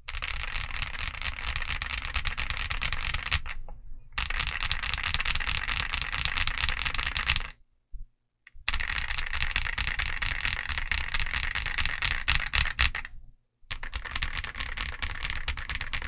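Steady fast typing on a Zoom65 v2 mechanical keyboard with KFA N2O linear switches and MT3 Cyber keycaps, a dense run of keystrokes. The typing stops briefly three times, the longest pause about a second long near the middle.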